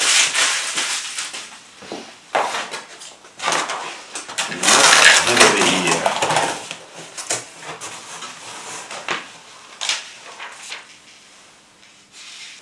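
Cardboard flat-pack box being opened and handled: the flaps scrape and rustle, loudest for a couple of seconds about five seconds in, then quieter paper rustling and small knocks as the sheets inside are leafed through.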